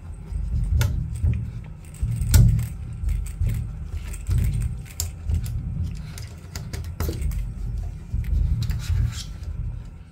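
Scattered light taps and clicks, the strongest about two seconds in, as a cat's paw hits the frame of a small opening in a door while swatting at a feather toy, over a steady low rumble.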